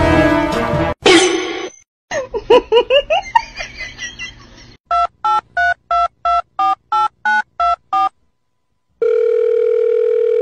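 A telephone being dialed: a run of eleven short keypad beeps at about three a second, then after a short pause a steady call tone. Before that, music cuts off and a burst of quick rising chirps plays.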